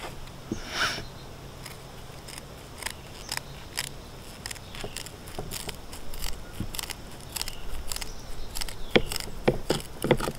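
Scissors snipping through the fins of a whole flounder: a string of short, crisp cutting clicks at irregular intervals, louder and closer together near the end.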